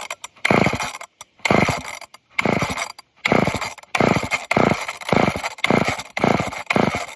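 Old two-stroke chainsaw being pull-started over and over: about eleven quick rope pulls, each a short rasping burst of the engine cranking without catching. It is hard to start, which the owner suspects is the engine struggling to pull fuel through a dirty filter.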